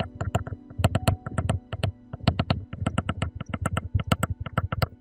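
Rapid, irregular clicks and taps, several a second, over a faint steady low hum.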